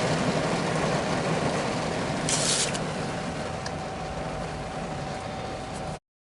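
Steady noise inside a car cabin, with a faint steady hum under it. A brief high-pitched hiss comes about two and a half seconds in, and the sound cuts out abruptly near the end.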